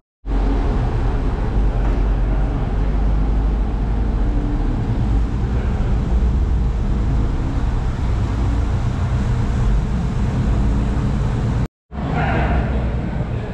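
A car driving: a steady, low engine and road rumble, broken by a split-second drop to silence right at the start and again near the end.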